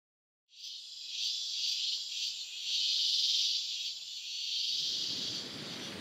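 Insects shrilling in a high, steady chorus that swells and eases every second or so. It starts about half a second in. Near the end, a broad rushing noise fades in beneath it.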